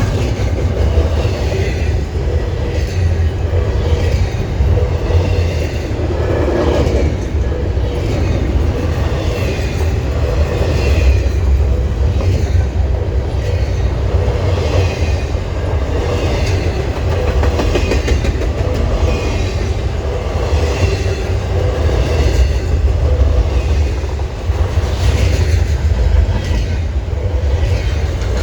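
Freight train cars rolling past: a steady heavy rumble with the regular clickety-clack of wheels over the rail joints.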